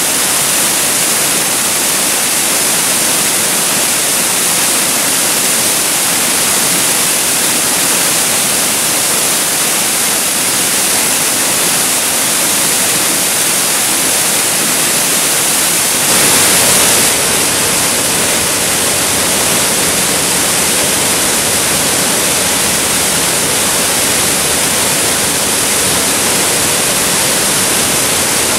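Waterfall pouring steadily into a plunge pool, a constant loud rush of falling water. Just past the middle it swells louder for about a second, and a low rumble is a little stronger after that.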